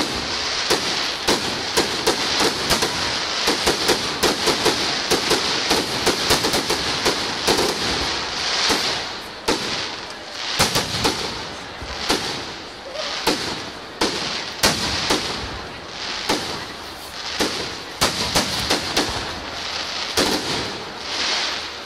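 Fireworks display: a rapid, irregular string of sharp bangs, with crackling and hissing that swell and fade every second or two as the glitter and crackle shells burst.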